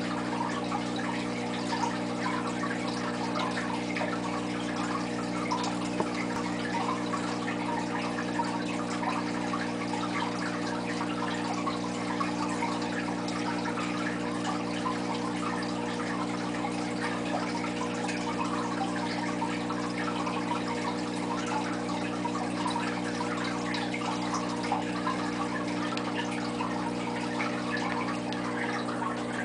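Aquarium water trickling and bubbling steadily, a fine crackle of small drips and splashes, over a steady low hum.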